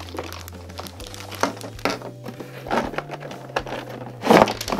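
Clear plastic bags crinkling as hands unwrap and handle Play-Doh playset pieces, over background music. The loudest crinkle comes near the end.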